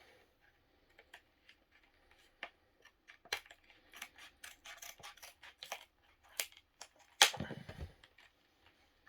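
Scissors snipping through cardboard-and-plastic blister packaging, a run of irregular short clicks and snips. A louder knock and rustle comes about seven seconds in.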